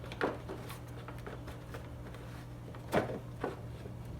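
A few brief clunks and knocks of a plastic car cover being worked loose and lifted out, the sharpest about three seconds in.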